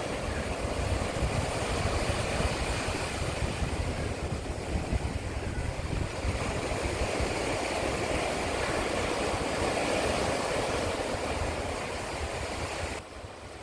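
Ocean surf breaking and washing over shore rocks: a steady rushing noise with a low rumble underneath, which drops away a little near the end.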